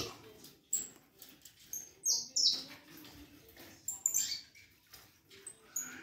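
Caged saffron finch (canário-da-terra) giving a handful of short, high chirps with quiet gaps between, the loudest a falling note about two seconds in.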